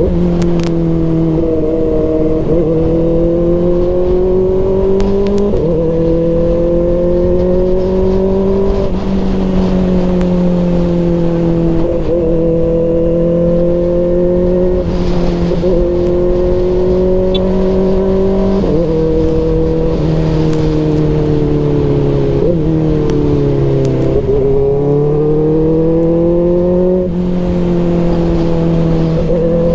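Kawasaki Ninja ZX-4RR's 399 cc inline-four running through an SC Project CRT exhaust, its note climbing slowly in pitch and then dropping back again and again every few seconds, with a deeper dip and a climb back up about three-quarters of the way through.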